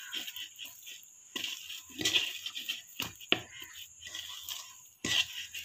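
A hand mixing and kneading soft flour dough in a metal bowl: irregular rubbing and scraping, with a couple of sharp clicks about three seconds in.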